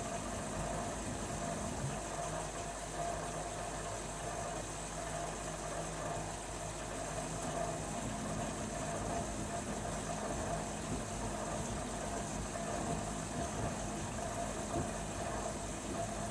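LG washing machine running through a wash cycle, a steady mechanical hum.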